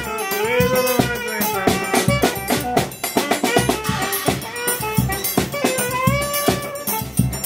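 Saxophone playing a melody with bending notes, backed by a piano accordion and a drum keeping a steady beat.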